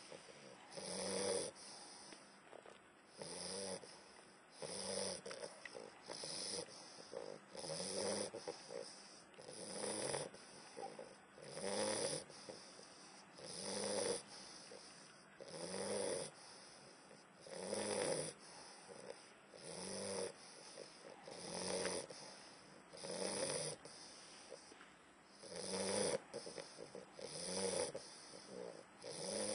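English bulldog snoring as it drifts into deep sleep, one snore with each breath, rising and fading evenly about every two seconds.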